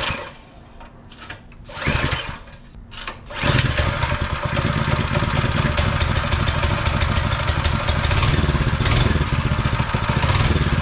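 DuroMax 208cc single-cylinder four-stroke engine on a minibike, recoil pull-started on choke: two pulls fail to catch, then it fires about three and a half seconds in and keeps running steadily.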